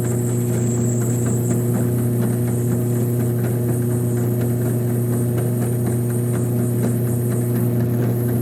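Drill press running steadily with a constant motor hum, spinning a piece of PVC while a hand-held chisel scrapes shavings off it.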